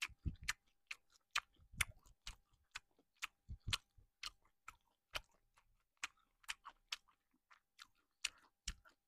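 Close-up chewing of a mouthful of rice bowl with seasoned cockles and oysters: a string of short, wet, sticky clicks and smacks, a few to several a second. The cockles are chewy, a sign of fresh in-season shellfish.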